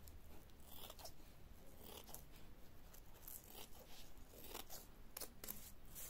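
Scissors snipping through layers of tulle: a series of short, faint cuts at uneven intervals as the tutu skirt is trimmed to length.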